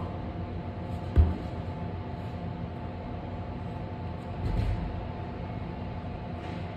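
A climber's hands and feet hitting the holds of a steep Kilter board: a sharp knock about a second in and a duller, longer thud a few seconds later, over the steady low hum of a large gym's ventilation.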